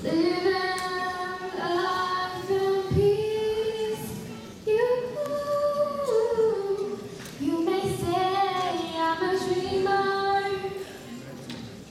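A girl singing a slow melody through a microphone in long held notes, in three phrases with short breaks between them.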